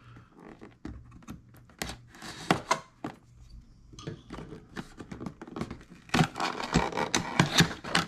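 Cardboard product box being pried open by hand: scattered scrapes, taps and small thunks of the flap and box, growing busier in the last couple of seconds.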